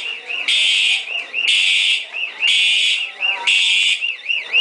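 Building fire alarm sounding: harsh buzzing horn blasts about half a second long, repeating roughly once a second, with a warbling tone rising and falling between the blasts.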